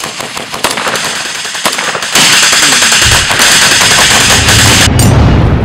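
Rapid automatic gunfire in quick cracks. About two seconds in, it gives way to a much louder, dense blast of noise with a deep rumble underneath, which cuts off sharply near the end while the rumble lingers.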